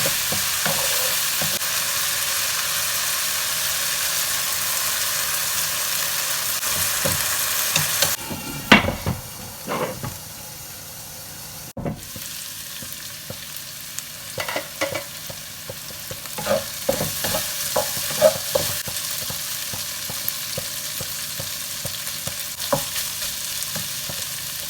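Minced chicken masala filling frying in a pan: a steady loud sizzle while it is stirred. About eight seconds in the sizzle drops to a quieter hiss, with a spatula scraping and knocking against the pan now and then.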